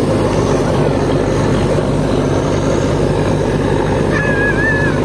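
Boat engine running steadily, heard on board as a dense low rumble. About four seconds in, a brief wavering high-pitched call sounds over it.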